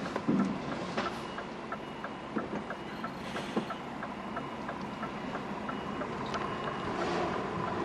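Inside an HGV cab: the lorry's diesel engine runs steadily under a fast, even ticking of about three ticks a second, with a few knocks near the start.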